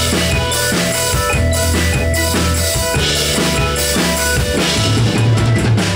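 Live rock band playing loud through a festival PA: drum kit with kick and snare driving a steady beat under a bass line and held chords.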